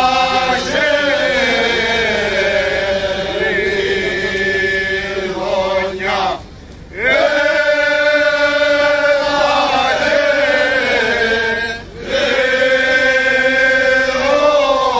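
A rizitiko, a Cretan folk song, sung unaccompanied by a group of men, in long held, slowly gliding notes. The singing breaks off briefly about six seconds in and dips again near twelve seconds.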